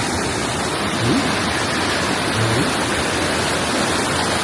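Steady rush of water from a small waterfall, an even hiss with no rhythm.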